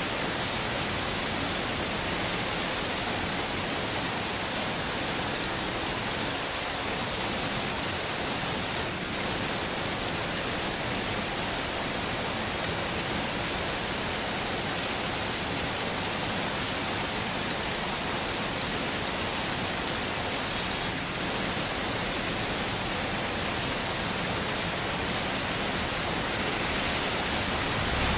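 Steady heavy rain, an even hiss spread from low to high, dipping very briefly twice, about twelve seconds apart.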